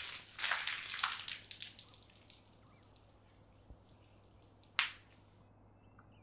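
Water splashing, then thinning to scattered drips, with one sharp drip about five seconds in before the sound cuts off.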